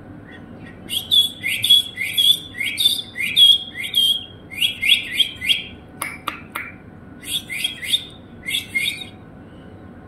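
A rapid series of short, shrill chirping calls, each rising quickly in pitch, about two a second, with a brief break and a few sharp clicks about halfway through.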